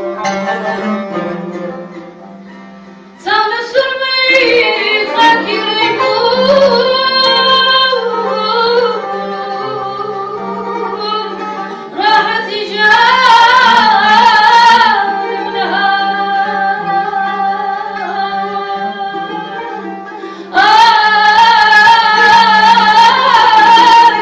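A woman sings slow, ornamented phrases over plucked oud and long-necked lute accompaniment. Loud sung phrases enter about three seconds in, around twelve seconds and again around twenty-one seconds, with softer instrumental passages between.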